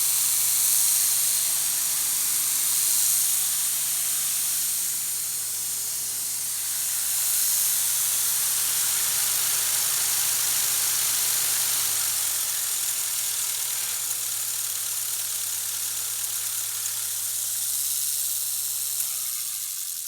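A Lincoln SA-200 engine-driven welder running, with a low engine hum under a loud steady rushing of air. About twelve seconds in the engine note drops slightly, and near the end the machine winds down and stops.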